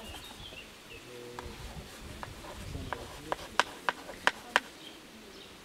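Chalk tapping and scratching on a clapperboard's slate as letters are written, with a run of five sharp taps from about three seconds in.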